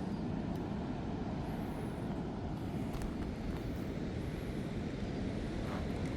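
Steady low rumbling outdoor background noise at an even level.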